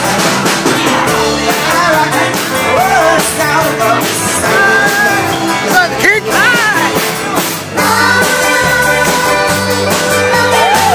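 A song with a singer over a steady beat, played as dance music.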